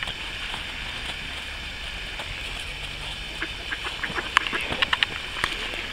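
Mallard ducks quacking, a quick run of short calls about four to five seconds in.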